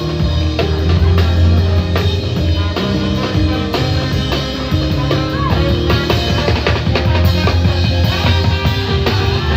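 Loud music with a drum-kit beat and a heavy bass line.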